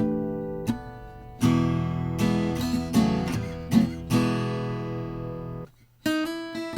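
Guild M-260e acoustic guitar strung with D'Addario Flat Tops 12–53 strings, played as strummed chords that ring out. The last chord fades and cuts off about five and a half seconds in, and after a short gap a run of single picked notes begins.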